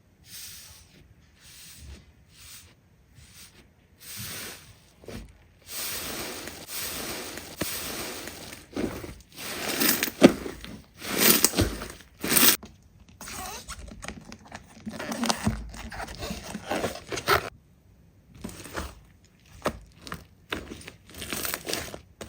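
Hands squeezing, stretching and pressing slime: a continuous run of sticky crackles and sharp pops as trapped air bursts, loudest in the middle, with a few brief pauses.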